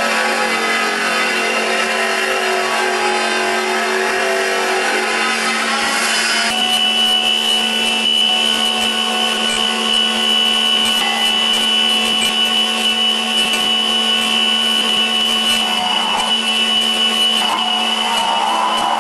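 Clansman Dynamics G30P grinding manipulator's abrasive disc grinding a metal casting, a steady machine drone. About six and a half seconds in it cuts abruptly to the manipulator's spindle-mounted burr grinding the casting, with a steady high whine.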